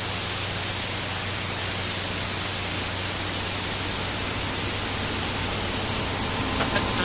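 Steady hiss of television static, with a low hum underneath.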